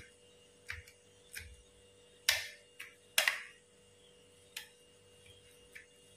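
Metal knife and spoon clicking and scraping against a stainless steel bowl while cutting steamed egg into pieces: about eight scattered clicks and short scrapes, the two loudest near the middle.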